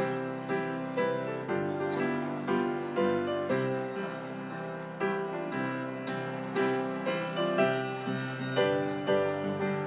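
Piano music: notes and chords struck about twice a second, each one ringing and fading.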